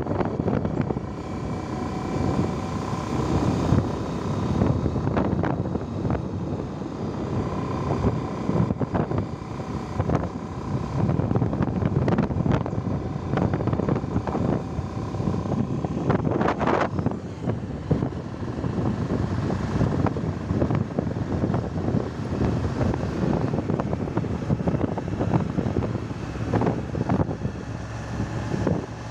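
Motorcycle riding along a winding road: steady engine and road noise with wind buffeting the microphone.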